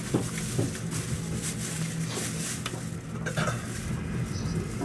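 Steady low hum inside an E217-series commuter train car, broken by scattered short clicks and rattles.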